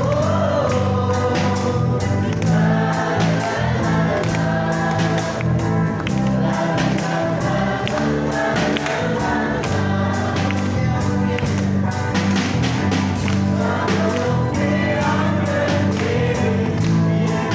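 Live gospel worship song: several voices singing together with acoustic guitar, electric guitar and bass guitar, amplified through a PA, with a steady beat.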